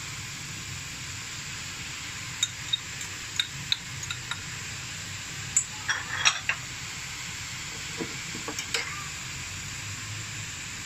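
Shredded carrot, capsicum and cabbage frying in a pan with a steady sizzling hiss. From about two seconds in until near the end, a spoon knocks and scrapes against the pan in a string of short clinks, busiest around the middle.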